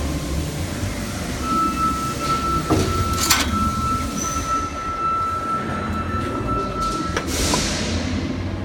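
Steady buzzing hum of AC TIG welding on aluminium, with a thin high tone that comes in about a second and a half in and cuts off about seven seconds in, and a few sharp clicks.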